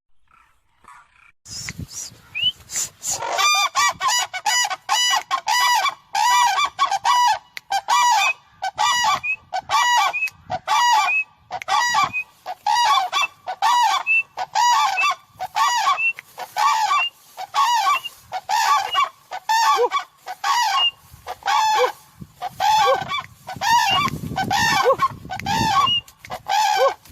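Captive cranes (koonj) calling: a long, loud series of short repeated calls, about two a second, beginning about a second and a half in.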